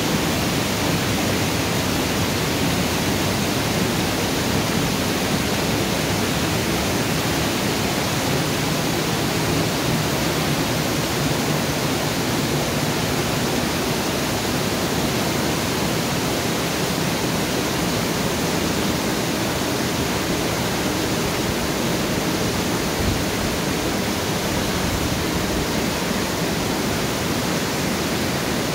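Water gushing through the open paddles of a broad canal lock's upper gates into the chamber as the lock fills: a steady, even rush of falling water.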